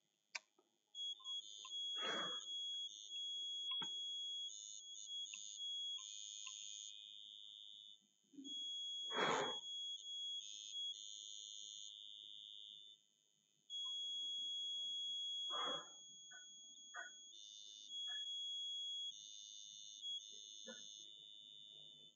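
A high-pitched steady electronic tone that switches on and off irregularly, in short blips and longer stretches of a few seconds, with a few brief thumps underneath.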